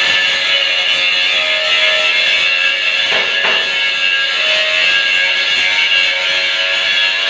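Background music playing steadily, with held notes and no speech.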